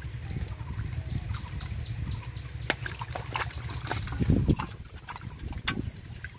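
Splashing and sloshing of shallow muddy water as a catfish is caught by hand and put into a pot, with a run of wet slaps and clicks in the second half, loudest about four seconds in. A steady low rumble runs underneath.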